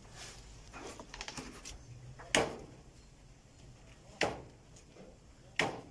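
White rabbits shifting and hopping in a wire cage with a plastic slatted floor: soft clicks and rustles, then three sharp knocks roughly two seconds apart.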